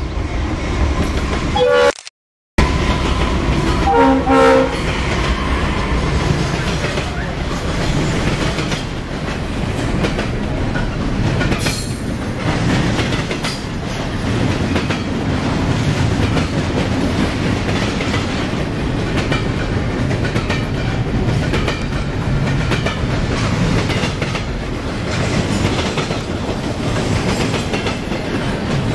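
CSX freight diesel locomotive sounding a short horn blast about four seconds in as it passes, then a long double-stack intermodal freight train rolling steadily by with a constant rumble. The sound cuts out for half a second about two seconds in.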